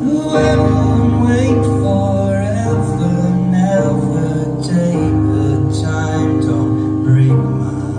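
Live band playing a slow song: sustained keyboard chords with electric guitar.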